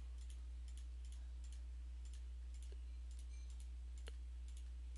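Computer mouse clicking repeatedly, about two clicks a second, as a button is clicked again and again. Under it runs a steady low electrical hum.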